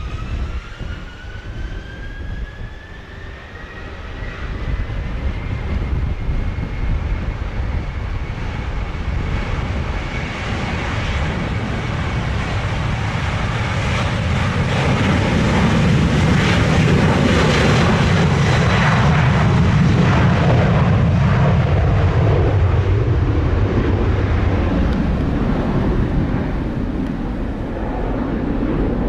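Twin jet engines of a Boeing 737 spooling up to takeoff thrust with a rising whine. This is followed by the loud roar of the takeoff roll, which is loudest about halfway through as the jet passes and eases off near the end as it lifts away.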